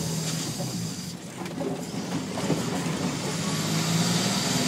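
Diesel engine of an 18-tonne 4x4 lorry running as it drives, heard from inside the cab, getting a little louder in the second half. A faint high whine rises in pitch about halfway through.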